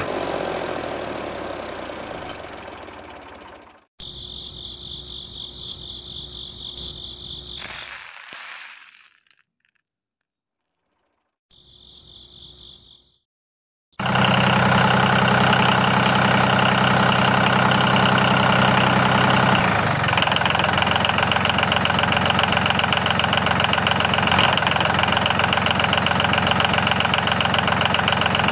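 Small electric motor running loud and steady, driving a belt pulley and gears that rock a toy rice-pounding lever; the running starts abruptly about halfway through, and its low hum changes about two-thirds of the way in. Before it come a fading sound and short passages of high whirring, with a few seconds of silence between them.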